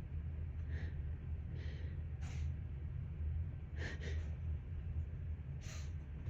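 A person sniffling and taking short, noisy breaths through the nose, about five in all, over a steady low hum: nasal congestion from a dust allergy.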